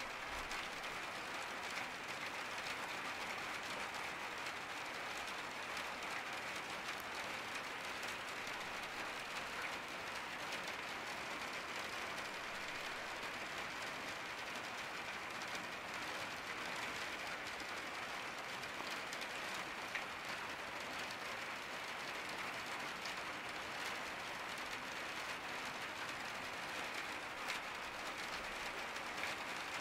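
Steady rain pattering on a skylight, a dense, even patter of drops that does not let up.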